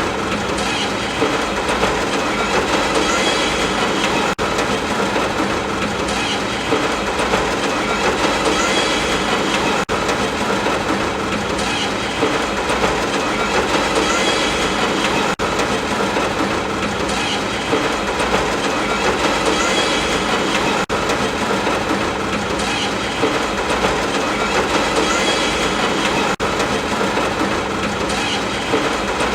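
A moving train's steady running noise, its wheels clattering over the rails in a dense, even wash of sound.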